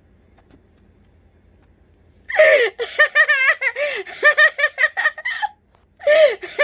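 A woman laughing in high-pitched, rapid giggling bursts, starting about two seconds in, breaking off briefly and starting again near the end.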